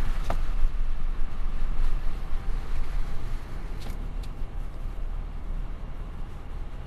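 Steady low rumble of a car's tyres and engine on the road, heard from inside the cabin, easing off a little after about three seconds. A few faint clicks are heard near the start and at about four seconds.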